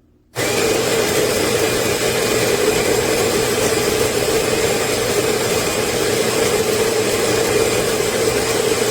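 AMZCHEF CG209 electric burr coffee grinder grinding coffee beans on a timed 8-second grind: a steady motor whir that starts abruptly about half a second in.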